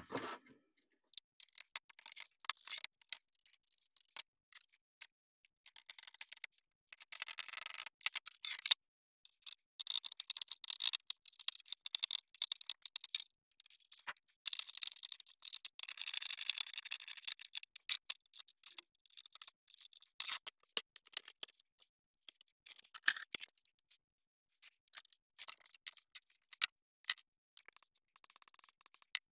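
Irregular small clicks, taps and short scraping noises from handling small parts and hand tools at a workbench, with a few longer stretches of scraping.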